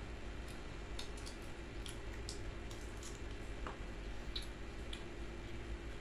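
Close-up eating sounds: wet chewing with scattered small mouth clicks and smacks, over a steady low hum.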